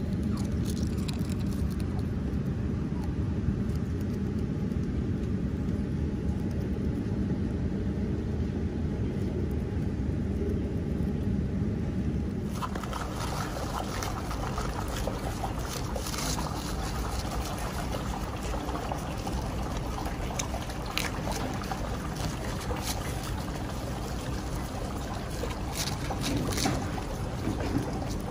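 A steady low rumble for about the first twelve seconds. The sound then changes abruptly to a capybara chewing cabbage leaves: a few crisp crunches over a steady watery hiss.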